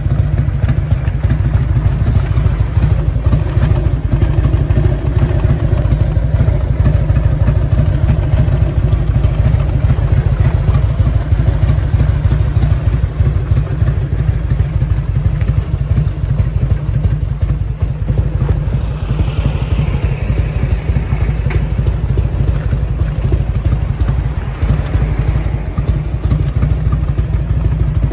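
Harley-Davidson FLHTCU Electra Glide Ultra Classic's 1340 cc Evolution V-twin idling steadily through an aftermarket muffler, a loud, even low pulse.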